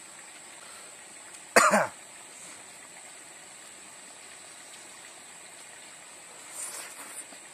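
A man coughs once, a short harsh cough falling in pitch, about one and a half seconds in. Faint chewing and slurping follow near the end as he eats.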